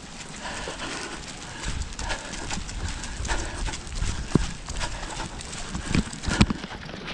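A runner's footfalls on a wet synthetic running track at a steady jogging rhythm, with wind buffeting the microphone. A few louder knocks come near the end.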